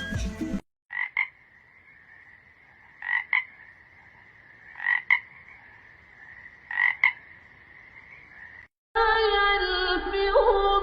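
A frog calling: four double-note calls, about two seconds apart, over a steady high drone.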